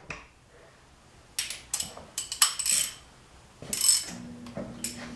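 Socket ratchet wrench clicking in several short spurts, with metal tool clinks.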